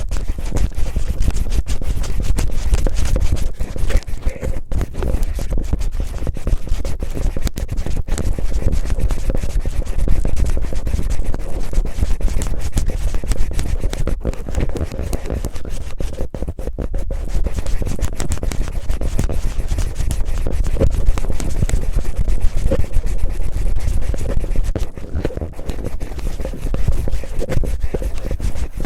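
Cellophane rubbed and crinkled roughly against a microphone, ear-cleaning style: a dense, continuous crackling scratch with a heavy low rumble from contact with the mic.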